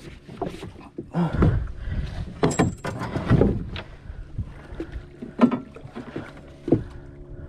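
Irregular knocks and splashing around a small boat as a hooked red snapper is brought in at the side.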